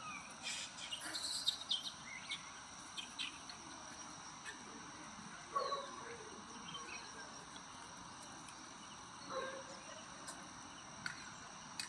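Outdoor insect ambience: a steady high-pitched drone of crickets or similar insects, with scattered short chirps and a couple of brief faint animal calls about halfway through and near the end.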